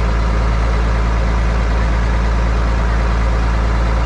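Boat's outboard motor running steadily under way while towing a shrimp trawl, a loud low drone with the rush of churning water from the propeller wash.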